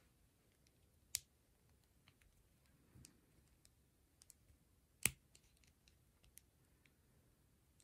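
Plastic Lego bricks being snapped together by hand: a sharp click about a second in and a louder one about five seconds in, with a few faint ticks of small pieces being handled between.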